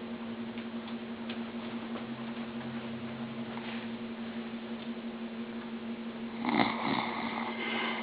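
A man snoring while asleep: a soft low snore about two to four seconds in, then a louder, rougher snore from about six and a half seconds in. A steady hum runs underneath.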